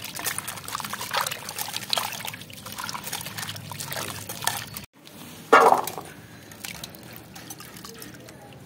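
Hands swishing and rubbing chopped vegetables in a stainless-steel bowl of water, with splashing and sloshing. About five and a half seconds in comes one brief louder noise, then water drips and trickles as handfuls are lifted out.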